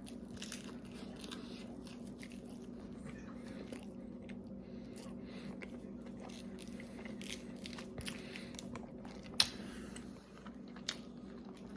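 Close-up chewing of a flour tortilla wrap filled with ham, lettuce and cheese: wet mouth clicks and crisp crunching of the lettuce, with a couple of sharper clicks near the end. A steady low hum runs underneath.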